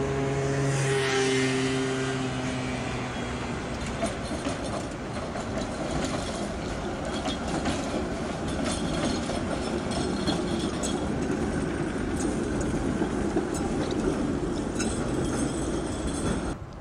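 A car passes in the first seconds, its drone dropping in pitch, then an articulated tram runs close by, its steel wheels rumbling on the rails with a string of sharp clicks and ticks from the track until the sound cuts off near the end.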